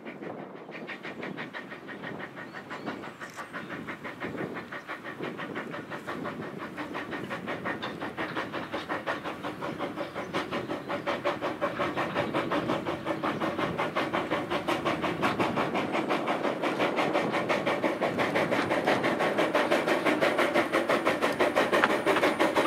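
Corris Railway No. 7, a narrow-gauge 0-4-2 tank steam locomotive, approaching under steam with a rapid, steady chuff of exhaust beats that grows steadily louder as it draws near.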